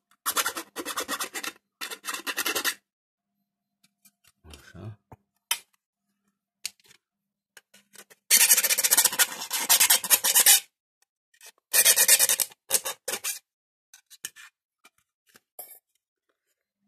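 Hand file rasping in quick back-and-forth strokes in three bouts, the middle one the loudest and longest, with small scrapes and clicks between.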